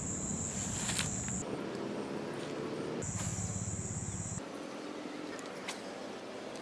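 Insects calling with a steady high-pitched drone that cuts in and out abruptly twice, over faint outdoor background noise.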